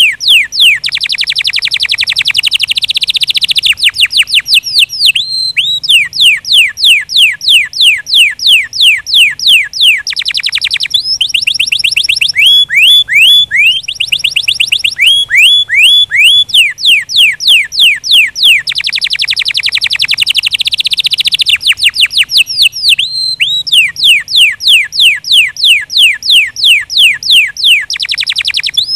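Canary singing: long trills of rapidly repeated, sweeping whistled notes, broken by a few short pauses between phrases.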